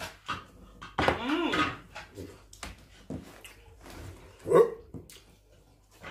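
Close eating sounds from people eating spiced goat head by hand: scattered wet clicks and lip smacks. A wavering, voice-like sound comes about a second in, and a louder short one just after the four-second mark.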